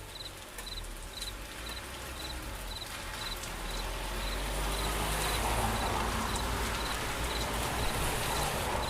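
Crickets chirping in a steady rhythm, about two high chirps a second, each a quick triple pulse. Rain hiss swells up and grows louder over the second half.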